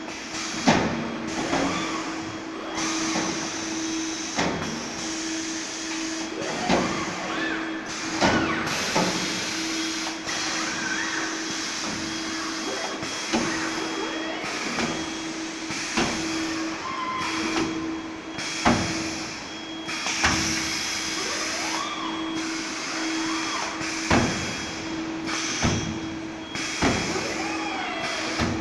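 Robotic car-body welding line: a steady machine hum with a constant tone, broken every second or two by sharp clanks, with now and then a short whine rising and falling in pitch as the robot arms move.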